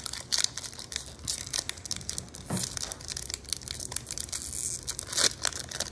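Foil Pokémon booster-pack wrapper crinkling and crackling as it is handled and torn open, in a quick run of sharp crackles with the loudest about five seconds in.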